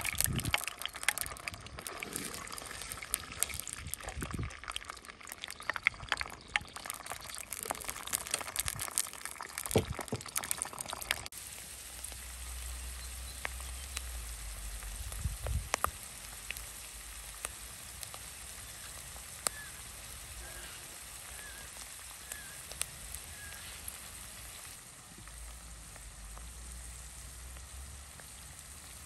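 Food frying in a pan: a busy crackling sizzle for the first third, changing abruptly about eleven seconds in to a quieter, steadier sizzle with occasional pops.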